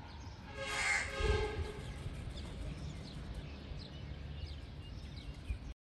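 Outdoor ambience with a low rumble and faint bird chirps. About a second in comes one short, loud horn-like tone, and the sound cuts off suddenly near the end.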